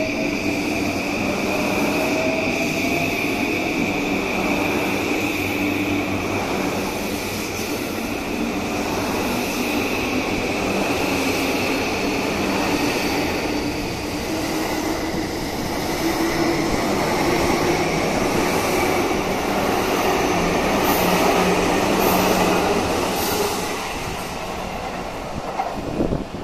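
E235 series 1000 electric train pulling out of the station: a motor whine that slowly climbs in pitch over the rumble of the passing cars, with wheels clicking over rail joints. It fades near the end as the last car leaves.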